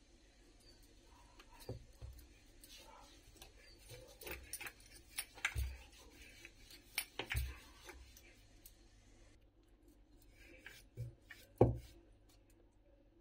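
Wooden rolling pin rolling dough on a stone countertop, knocking and tapping on the stone in irregular clicks and thuds, the loudest thud near the end, with light clinks of bangles.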